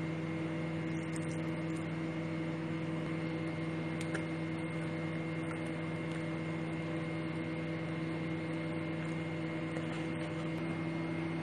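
Electric hand mixer running steadily at an even speed, its motor giving a constant hum as it beats cake batter.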